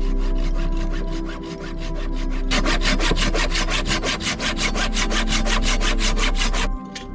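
Hand saw cutting wood in quick, even back-and-forth strokes, several a second. It gets louder about two and a half seconds in and stops just before the end.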